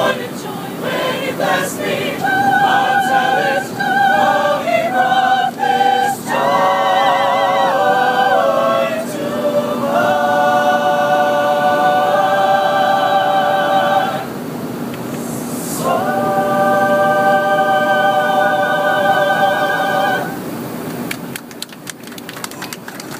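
Mixed choir singing a cappella in an airliner cabin, held chords with vibrato over the cabin's steady noise, with a short break about fourteen seconds in. The song ends about twenty seconds in, followed by a patter of clapping near the end.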